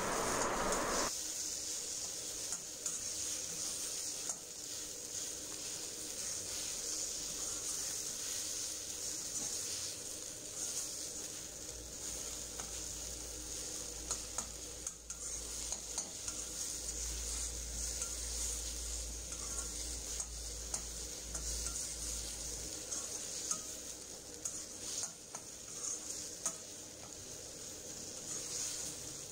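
Onion-tomato masala sizzling in oil in an iron kadai, with a steel spatula repeatedly scraping and stirring it against the pan.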